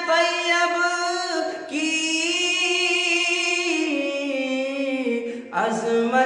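Unaccompanied voice singing a naat in long held notes. It rises to a higher note about two seconds in, then steps down in pitch over the last few seconds, with a short break near the end.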